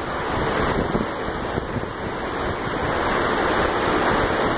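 Steady rushing wash of a large ship's churning wake, heard from high on the stern, with wind on the microphone.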